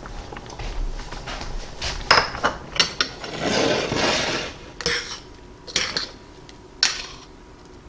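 A metal spoon clinking against and scraping a stainless steel saucepan as soup is stirred and spooned. Several sharp clinks, with a longer scrape about three to four seconds in, and a bowl set down on the counter.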